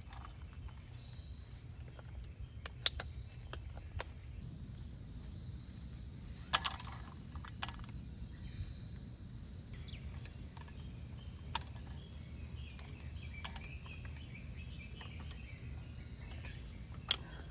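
Outdoor ambience with a steady low rumble, a few sharp clicks and knocks scattered through it, and faint chirps near the end.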